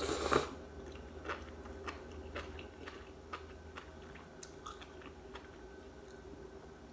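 A person slurping soup noodles in one short burst right at the start, then chewing with scattered soft mouth clicks.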